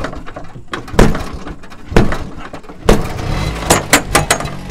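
An auto-rickshaw being started by pulling its floor starter lever: a sharp clunk about once a second, three times. A little past three seconds in, the engine catches and settles into a low, steady idle, with a few more quick clatters over it.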